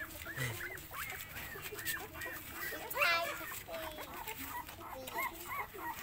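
Young puppies squeaking and whimpering while nursing: a string of short, high arched squeaks, with one louder, longer cry about three seconds in.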